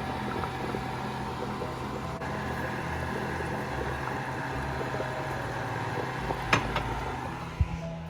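Steady kitchen hum and hiss, as from an appliance fan running near the stove, with two short sharp knocks about a second apart near the end, as of a utensil or container against the pot while sugar and salt go in.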